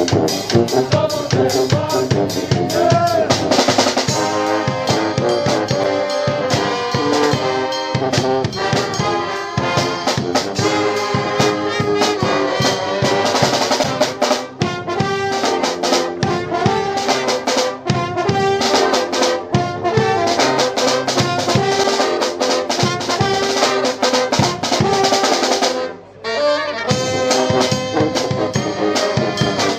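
Brass band playing live: trumpets and trombones over a drum kit beat, with a brief break about 26 s in before the band comes back in.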